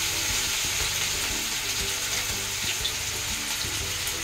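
Ginger-garlic paste sizzling steadily in hot oil in a kadai, with small crackles throughout and a spoon stirring it.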